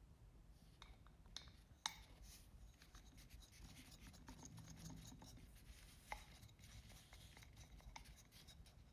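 Near silence with a few faint, sharp clicks and light rubbing, like small parts being handled.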